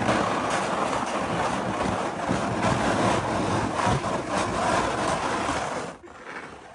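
Sled sliding down a snowy slope: a steady scraping rush of runners on snow with small bumps, dying away about six seconds in as the sled stops.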